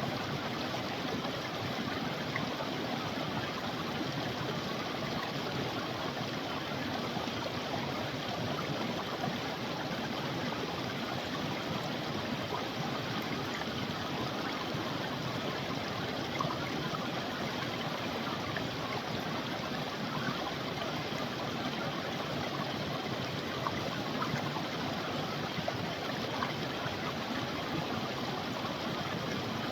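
A creek running steadily, an even rush of flowing water over stones.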